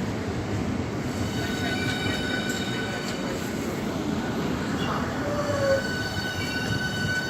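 Train moving through the station with a steady rumble, joined about a second and a half in by a high steady squeal of several pitches that holds to the end.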